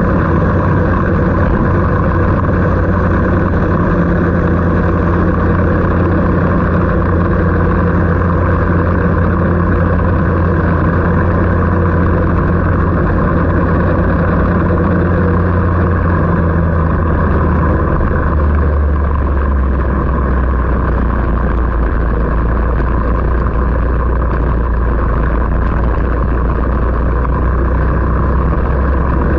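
An engine running steadily and loudly, with a low hum whose pitch drops a little about two-thirds of the way through, over a constant rushing noise.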